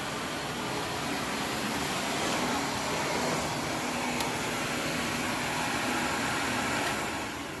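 Shark vacuum cleaner running on carpet: a steady rush of motor and suction airflow, with a faint click about four seconds in.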